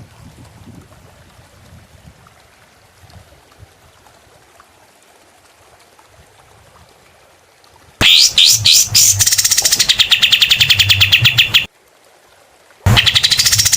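A small songbird's sharp, rapid-fire song. After a quiet stretch, a loud run of fast repeated high notes starts about eight seconds in, breaks off for a moment, and starts again near the end.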